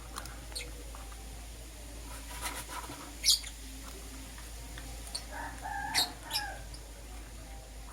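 Lovebirds chirping: a few short, sharp, high-pitched chirps, the loudest about three seconds in and another near six seconds, with a lower wavering call just before and around the second chirp.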